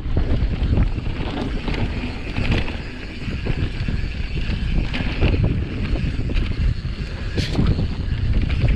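Wind buffeting the microphone over the rattle and tyre rumble of a mountain bike riding fast downhill on dirt and grass, with frequent small knocks from the bike bouncing over the ground.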